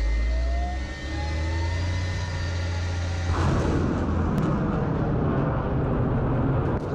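Rocket artillery launch: truck-mounted multiple rocket launchers firing. A deep rumble with a faint rising whine gives way, about three seconds in, to a sudden loud, rough roar of rockets leaving the launchers.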